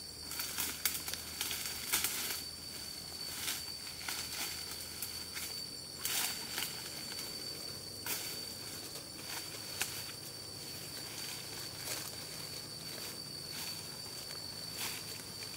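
Footsteps and rustling through dry leaf litter and undergrowth, coming as irregular brushes and steps. A steady high-pitched insect call carries on underneath.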